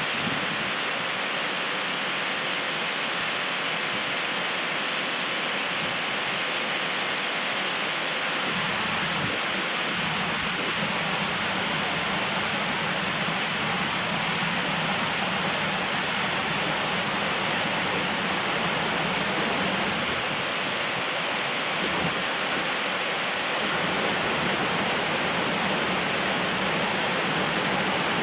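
Tokkake Falls, a waterfall, rushing steadily with an even, unbroken roar of falling water.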